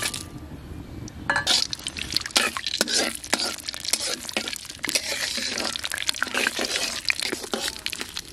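Whole spices (dried red chillies, bay leaves, cloves, peppercorns, cumin, cardamom) sizzling and crackling in hot mustard oil in an iron wok, stirred with a metal spatula; the crackling swells about a second in and keeps up as the spices fry.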